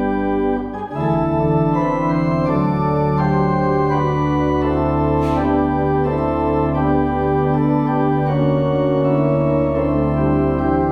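Church organ playing slow, sustained chords, with a short break about a second in before the next chord comes in.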